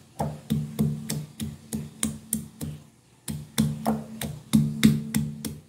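Stone pestle pounding turmeric, garlic and onions in a stone mortar: a steady run of knocks, about three a second, each with a short low ring from the stone, with a brief pause about three seconds in.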